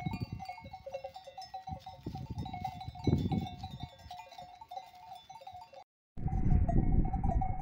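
Bells on grazing sheep jingling and clanking irregularly, with gusts of wind rumbling on the microphone. The sound drops out briefly about six seconds in, then the jingling carries on.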